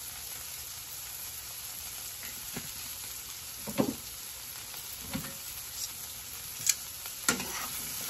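Broccoli and zucchini sautéing in butter and oil in a nonstick frying pan over a gas flame: a steady sizzle, broken by four sharp clicks of utensils against the pan.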